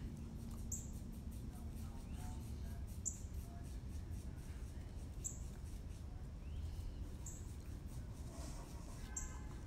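A puppy whimpering faintly in a few short, high squeaks over a low steady rumble.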